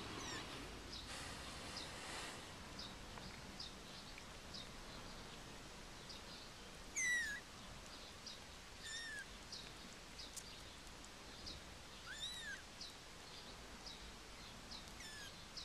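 Young kittens mewing four times in the second half, thin high calls a couple of seconds apart, the first the loudest. A faint run of short high chirps, about two a second, goes on underneath.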